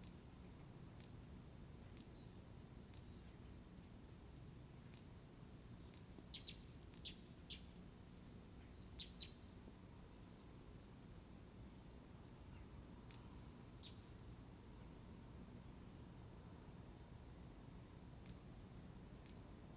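Near silence with a few faint, short, high bird chirps from a small songbird: two quick clusters about a third of the way in and one more a few seconds later. A faint high ticking repeats about twice a second.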